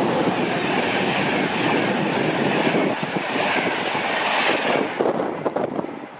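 A fast train passing straight through a station at speed, its rush of wheel and air noise mixed with wheel clatter, dying away about five seconds in.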